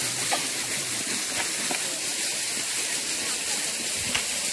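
Steady rush of flowing water, with a few faint clicks.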